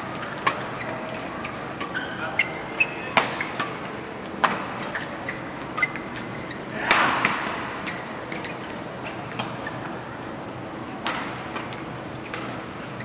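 Badminton rally: racket strings striking a shuttlecock in sharp cracks at irregular intervals, the hardest hit about seven seconds in and another about eleven seconds in, with brief squeaks of shoes on the court mat over the steady murmur of a large hall.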